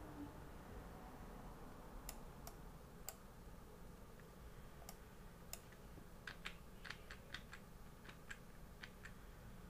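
Faint scattered clicks at a computer: a few single clicks, then a quick run of about a dozen near the end, over faint background noise.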